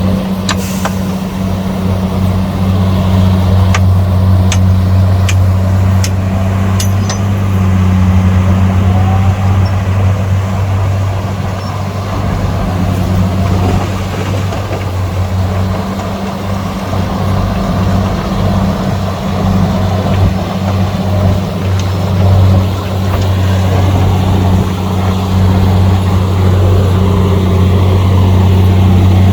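Heavy diesel engine of earthmoving equipment running steadily under load, with a few sharp metallic clicks about four to seven seconds in.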